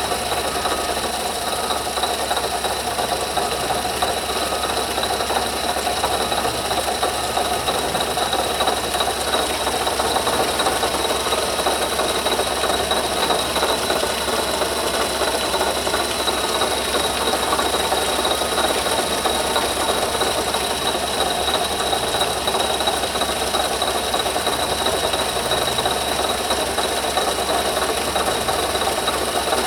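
Running engine with a loud scraping, rattling noise and a steady high whine from a bad water pump bearing, which is shedding metal fragments inside the pump housing.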